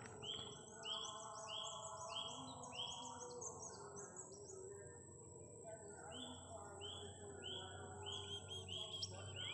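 Small bird chirping: a series of short rising chirps, about two a second, over higher twittering. The chirps stop for a couple of seconds in the middle, then resume and come faster near the end.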